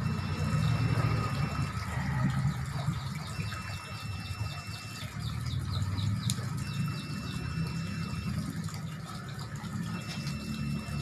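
Water running and splashing as fish are washed by hand in a basin, over a steady low hum. A faint high beep lasting about a second and a half comes back roughly every three seconds.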